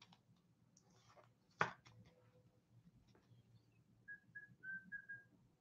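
Quiet handling of a trading card in a clear plastic holder, with one sharp click about a second and a half in. Near the end come four short, high chirps in quick succession.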